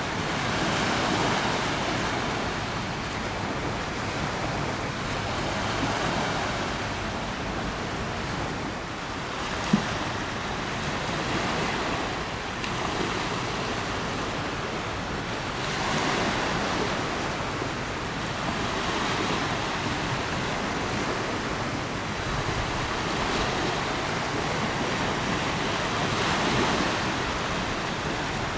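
River waves washing, a steady rush that swells and fades every few seconds, with wind in the background. A single sharp click about ten seconds in.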